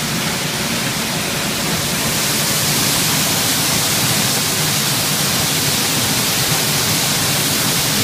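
Waterfall: a curtain of water falling and splashing right in front of the microphone, a steady, dense hiss that grows a little louder and brighter about two seconds in.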